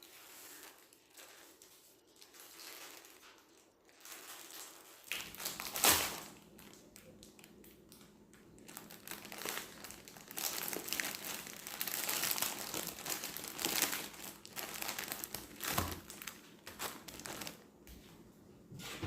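Crinkling and rustling of a plastic wrapper being handled, with a sharp knock about six seconds in.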